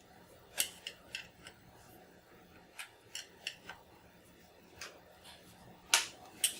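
Scattered small clicks and scrapes of a hand pry tool working at the power LED in a plastic Commodore 64 case, with the sharpest click about six seconds in.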